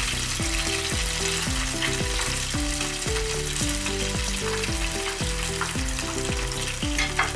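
Batter-coated prawn skewers frying in hot vegetable oil in a pan: a steady sizzle with a few sharp pops.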